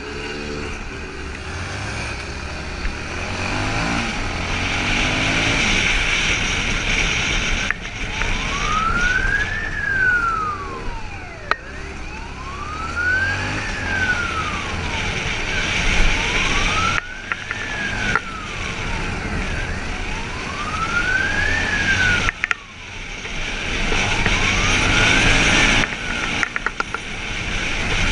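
Motorcycle engine revving and running under wind noise; from about eight seconds in, a police siren wails, rising and falling roughly every four seconds.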